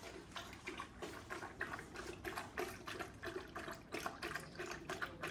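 Young Kangal dog lapping water from a bucket, a quick, even run of wet laps, about three to four a second.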